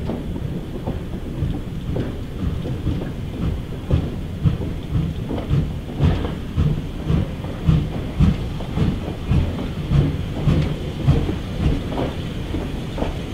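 York 17, a 4-4-0 steam locomotive, approaching with its train, its exhaust chuffing over a deep rumble. The beats come about two a second and grow louder from about four seconds in.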